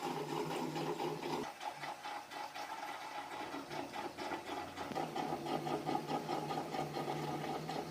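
Panasonic NA-F70S7 automatic washing machine running its tub hygiene cleaning cycle: a steady motor hum with a fast, even rattle, which shifts about one and a half seconds in and again about five seconds in.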